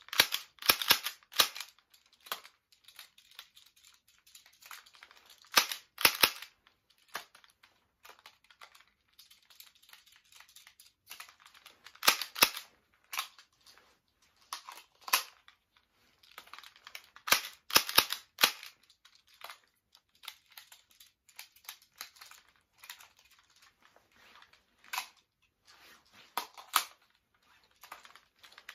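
Sharp plastic clacks and clicks from a Tokyo Marui toy Glock 26 pistol being spun and caught in the hands. They come in short clusters of two or three, a few seconds apart.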